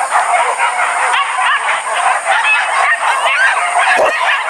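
A pack of hunting dogs yelping and barking all at once, in a dense, unbroken chorus of high yips. A short dull thump about four seconds in.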